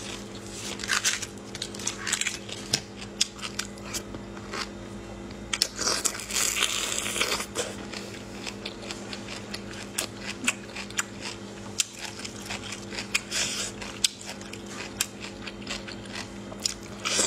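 Brined bamboo shoots peeled by hand: the wet, dark husks tear and crackle in a string of sharp clicks, with a longer tearing stretch about six seconds in. Near the end come crunchy bites of the shoot. A steady low hum runs underneath.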